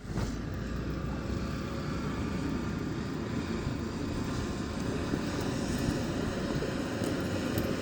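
Snowplow truck's engine running with a steady, heavy rumble.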